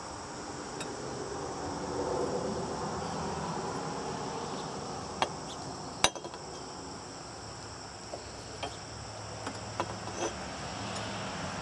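Sharp metallic clicks of a steel combination wrench against a nut on an engine's pressure control valve as it is turned and reset, a handful of them through the second half, the loudest about six seconds in. Crickets chirp steadily throughout.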